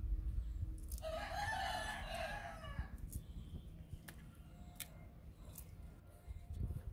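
A rooster crowing once, one long call of about two seconds, over a low rumble with a few faint clicks.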